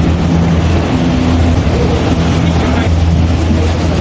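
Gondola lift terminal machinery running, a steady low hum.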